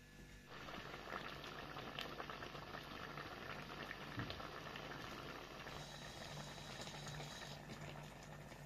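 Stuffed onion and tomato dolma simmering in its sauce in an aluminium pot, a dense bubbling with many small pops that starts about half a second in.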